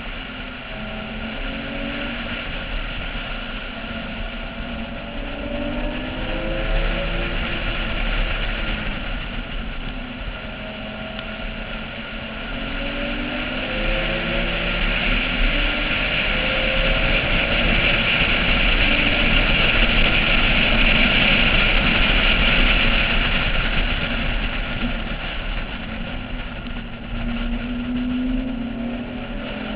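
Porsche 996's flat-six engine at full throttle, repeatedly winding up in pitch and dropping back at each gear change, under heavy wind rush on a roof-mounted camera at speed.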